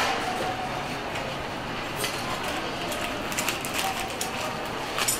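Indistinct background voices over a steady hiss, with a few light clicks and knocks.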